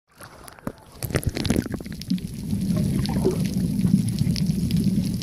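Water splashing against the camera as it is dunked under the sea surface, then a steady muffled low rumble heard through the water.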